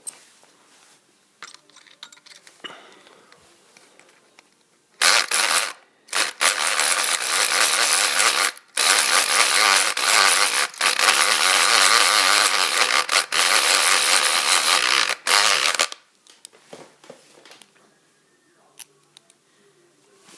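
Homemade electric pick gun, built from a Black & Decker electric screwdriver, buzzing loudly in a string of runs with brief stops as its pick is worked inside a padlock to bounce the pins. It starts about five seconds in and stops about four seconds before the end, with faint handling clicks before and after.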